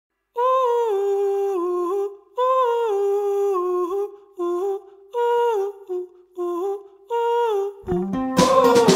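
Background music: a lone wordless vocal melody hummed in short falling phrases with pauses between them, then a full band with guitar and beat comes in near the end.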